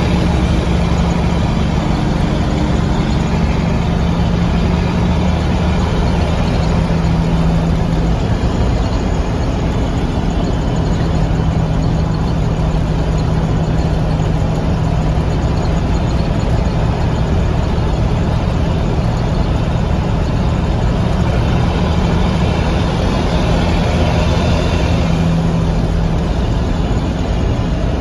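Mack B-61 truck's diesel engine running steadily under way, a low drone that holds a nearly constant pitch, its injection pump freshly repaired.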